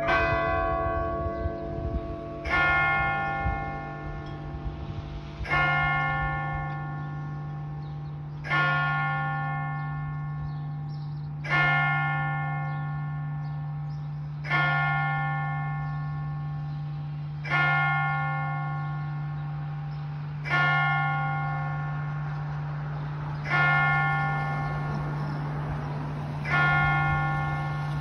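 A large church tower bell tolling at noon: single strokes about every three seconds, nine in all, each ringing on and fading until the next. At the very start, the last strikes of other bells die away.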